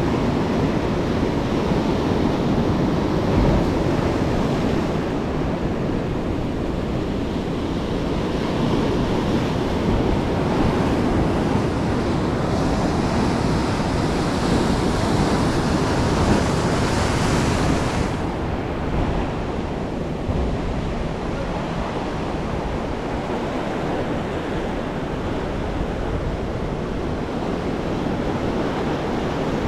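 Ocean surf breaking and washing up the beach, with wind rumbling on the microphone. A brighter hissing wash rises about halfway through and stops abruptly about two-thirds of the way in.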